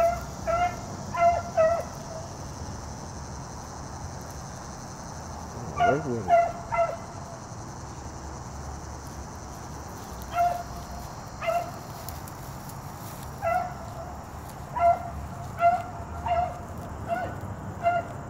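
Hunting hounds giving short chop barks while trailing a scent in thick cover, in scattered bursts of a few barks with quiet gaps of several seconds between, the barking picking up and coming more steadily toward the end.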